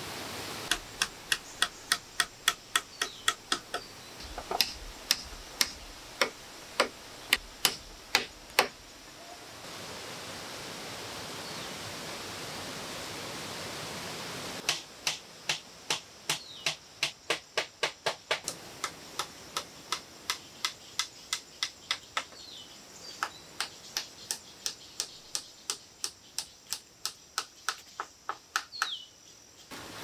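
Hammering on bamboo and timber joints: sharp wooden knocks in irregular runs of about one to three blows a second. For several seconds in the middle the knocking stops and only the steady rush of a waterfall is heard.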